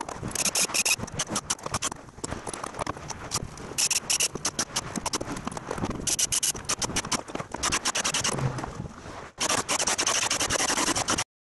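Repeated knocking and clicking of tools and clamps being worked on new hardwood floorboards of a truck flatbed, coming in several dense bursts and stopping abruptly near the end.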